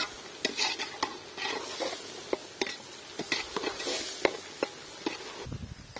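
Metal ladle stirring and scraping inside a large metal pot, with repeated sharp irregular clicks as it knocks the sides. Under it, oil sizzles faintly as shallots, dried red chillies and tomatoes fry.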